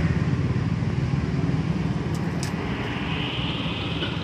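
Steady low rumble of city street traffic, with a couple of faint ticks about two seconds in.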